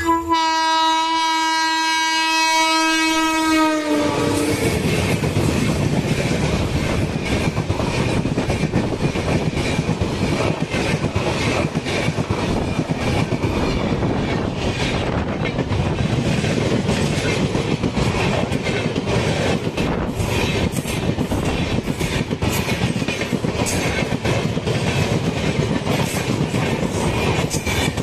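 A WAP-7 electric locomotive's horn sounds one long blast of about four seconds, its pitch dropping slightly as it ends. Then the train of LHB coaches passes close at speed: steady wheel rumble with rapid clatter of wheels on the rails.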